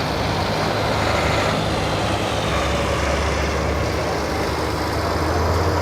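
Busy city street traffic noise, with a heavy vehicle's engine running close by under the general road noise; the low engine hum grows stronger about halfway through.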